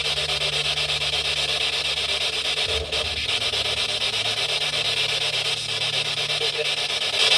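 Steady radio static hissing from a spirit box sweeping through stations, with a low steady hum underneath.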